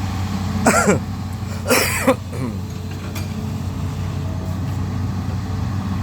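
Excavator's diesel engine running steadily with a low hum. A person makes two short vocal sounds, like coughs, about one and two seconds in.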